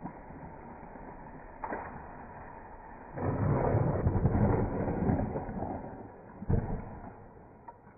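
A large tree limb snaps with a sharp crack about two seconds in, then crashes to the ground with a long, loud rush of breaking branches and leaves. A second short thud follows near the end.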